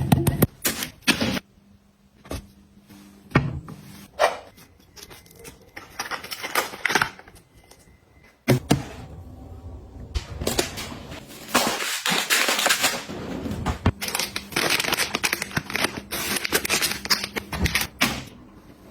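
Objects being handled and set down: a run of sharp clicks and taps, with stretches of rustling like packaging or plastic, in short segments that start and stop abruptly.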